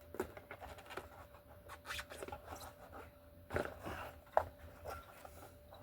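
A bicycle tire and inner tube being worked onto the rim by hand: irregular rubbing, scraping and small clicks, with one sharper knock about four and a half seconds in.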